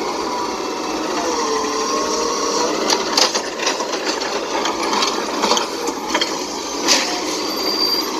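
Automated side-loader garbage truck running its hydraulic arm to lift and tip a wheeled trash cart into the hopper: the truck's engine and hydraulics hum steadily, with a whine that dips and rises in pitch a second or two in, and about three sharp knocks as the cart bangs at the top of the lift.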